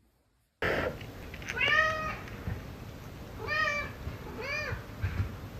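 Domestic cat meowing three times, about a second apart, each call rising and then falling in pitch.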